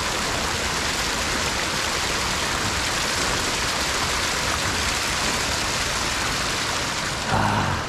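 Steady rush of fast-flowing stream water, an even hiss with no break. Near the end comes one short, louder sound.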